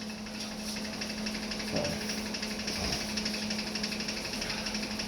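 Welder left switched on, giving a steady hum, with an electric fan clicking rapidly and evenly over it.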